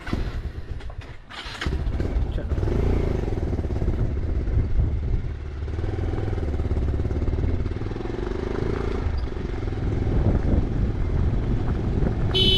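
Motorcycle engine starting about a second and a half in, then running steadily as the bike rides off. A brief high-pitched tone sounds near the end.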